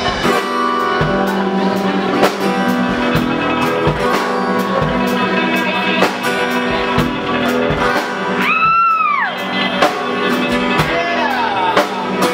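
Live band playing: acoustic and electric guitars, bass and drum kit, with a steady beat. About two-thirds of the way through, a high note slides up and back down over about a second.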